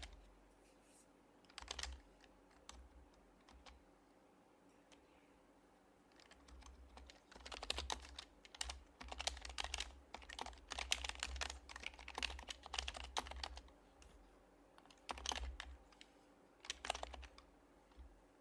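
Typing on an HHKB Professional Hybrid Type-S keyboard with its quiet Topre keys: a few short bursts of keystrokes, then a long run of fast typing for about eight seconds in the middle, then two more short bursts.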